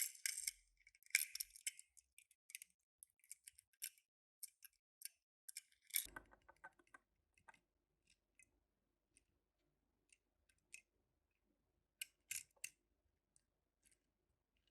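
Small toy cars and their packaging being handled: scattered soft clicks and rustles, with a short clatter about six seconds in and another burst of clicks near the end.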